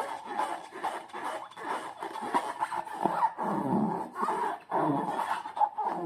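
Slime and rubber balloons being handled: continuous irregular squishing and squeaky rubbery rubbing.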